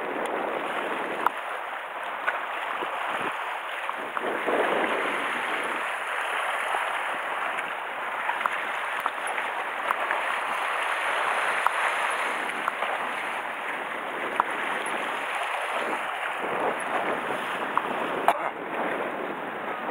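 Sea water washing against a rocky shore, a steady rushing with no pauses, with a few faint clicks.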